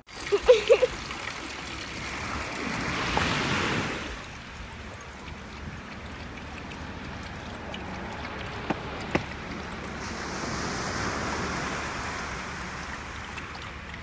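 Surf washing on a beach: a steady rush that swells about two to four seconds in. A few short, loud sounds come right at the start, and two faint clicks about nine seconds in.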